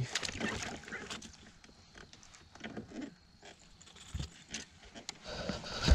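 Irregular soft clicks and taps of a baitcasting reel and rod being worked as a small topwater lure is retrieved slowly across calm water, with a louder knock near the end.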